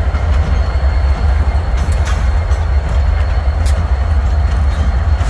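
Train rolling through a rail yard: a steady low rumble with a few sharp clicks.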